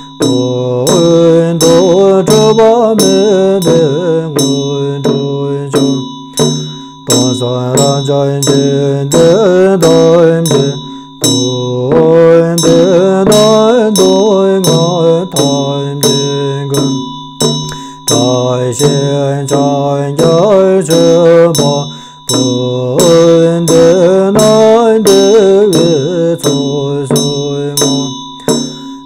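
Chöd chanting in a low, melodic voice in long phrases with short breaths between, accompanied by the steady rattling beats of a large two-headed Chöd damaru and the sustained ringing of a hand bell.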